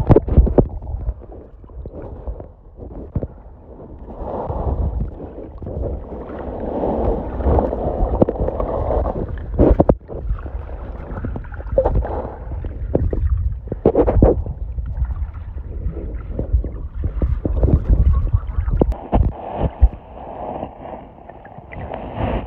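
Muffled sound of a phone's microphone held underwater in a river: a low rumble and a shifting gurgle of moving water, with frequent scattered knocks and clicks.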